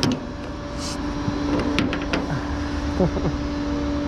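Flatbed tow truck idling with its PTO engaged, a steady engine hum with a constant whine held over it.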